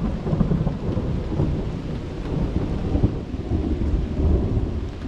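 A thunderstorm: rain falling steadily under a low rumble that swells and fades.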